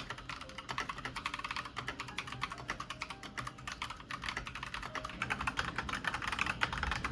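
Fast typing on an Akko mechanical keyboard: a dense, steady run of quick keystroke clacks, played as a sound test of its switches.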